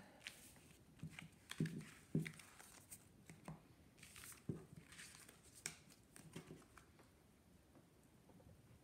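Tarot cards being gathered up from a spread on a soft cloth: faint, scattered clicks and rustles as the cards slide over one another and are stacked.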